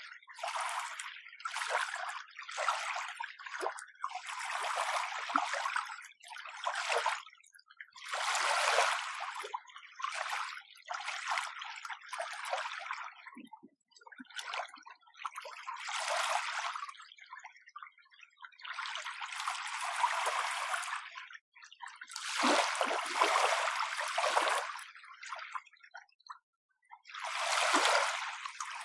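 Small, gentle waves lapping and washing on the shore in irregular surges, each lasting a second or two, with short quiet gaps between them.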